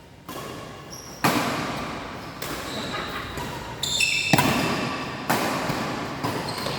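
Badminton rally: rackets striking a shuttlecock about once a second, each hit echoing in a large hall, with court-shoe squeaks on the floor between hits.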